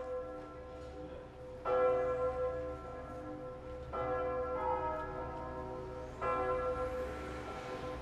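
A single bell tolling slowly: three strokes at the same pitch, about two seconds apart, each ringing on and fading before the next.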